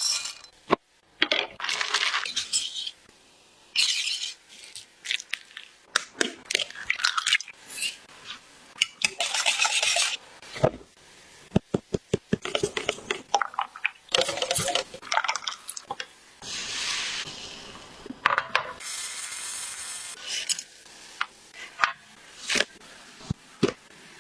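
Kitchen utensils clinking and tapping against bowls and dishes while a cake is made, with many sharp taps and several stretches of scraping, rustling noise between them.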